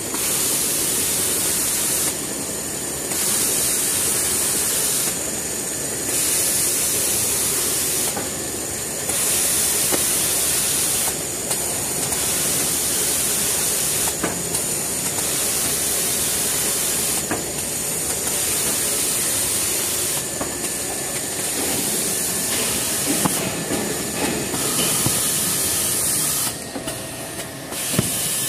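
Big-roll toilet paper embossing and rewinding machine running, a loud steady hiss of machinery with faint knocks. The high hiss cuts out for about a second roughly every three seconds as the machine cycles.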